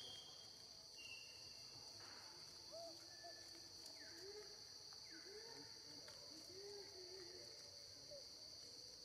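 Faint outdoor ambience dominated by a steady, high-pitched drone of insects, crickets or cicadas. A few faint short hoot-like calls, rising and falling, come from about three to seven seconds in.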